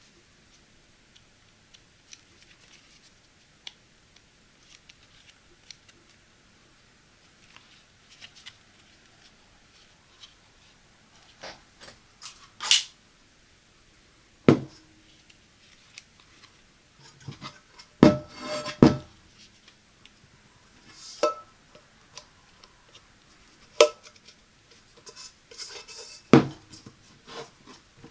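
Hands handling a silicone clip-on pot strainer: soft rubbing and small taps at first. Over the second half come a series of sharp knocks and clacks, some briefly ringing, as the strainer is fitted and clipped onto the rim of a nonstick cooking pot and the pot is moved.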